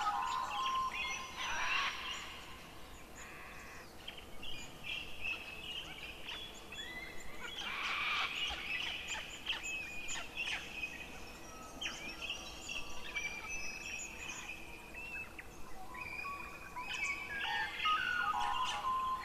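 A dense chorus of calling animals: many overlapping chirps, trills and short calls that swell and fade several times over a faint hiss.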